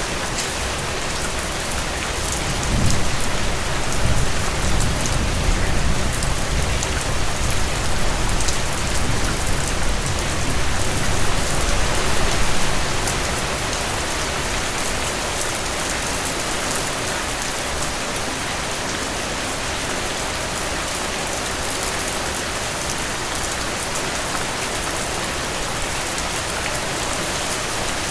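Steady rain falling, with a low rumble of thunder starting about three seconds in and rolling on for around ten seconds before fading back to the rain alone.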